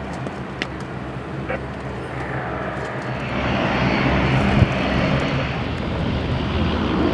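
Jet engine noise of a Boeing 787-9 Dreamliner's twin GEnx turbofans on final approach, growing louder from about three seconds in as the airliner comes near, with a faint high fan whine. A brief thump comes about four and a half seconds in.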